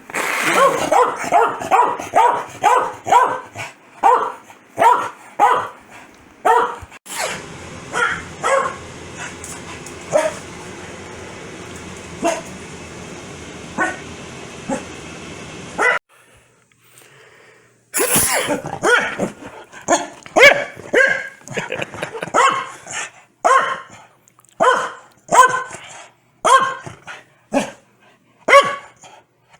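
A corgi barking over and over in runs of sharp barks, quick-fire at first, with a pause of about two seconds partway through before another long run.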